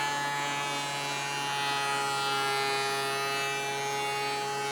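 DeWalt DW735 thickness planer running, a steady electric motor whine at one pitch.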